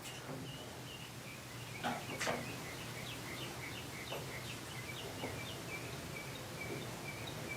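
A small bird chirping over and over in short high notes, with two light knocks about two seconds in and a steady low hum underneath.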